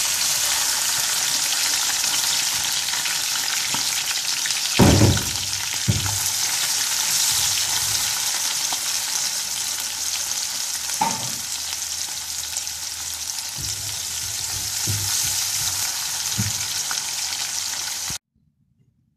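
Finely chopped garlic and long-cut green chillies sizzling steadily as they fry in hot oil in a nonstick wok, with a few dull knocks of the spatula against the pan as they are stirred. The sizzle cuts off suddenly near the end.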